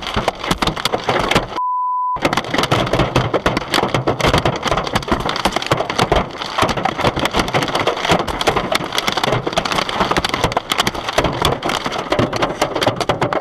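Dense, rapid clatter of heavy storm rain or hail striking a car, continuous and loud. About one and a half seconds in it is cut by a short censor beep.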